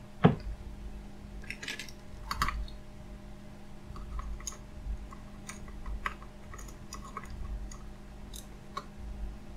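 Light, irregular clicks and taps of small phone parts being handled and pressed back into place as an opened smartphone is reassembled, with a short cluster about two seconds in and many faint ticks later on.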